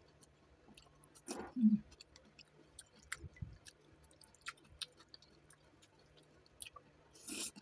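Close-up chewing and wet mouth sounds of someone eating noodle soup: scattered small clicks, with two short louder noisy sounds, one just over a second in and one near the end.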